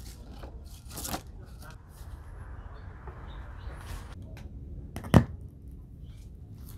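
Vinyl LP slid out of its paper inner sleeve with papery rustling and scraping, then set on the turntable platter; one sharp click about five seconds in.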